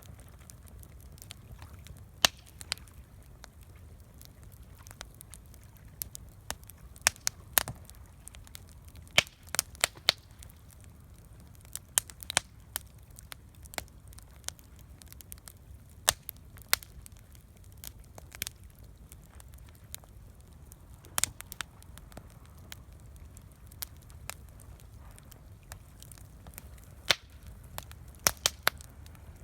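Campfire crackling: irregular sharp pops and snaps from burning wood, a few loud, over a faint low rumble.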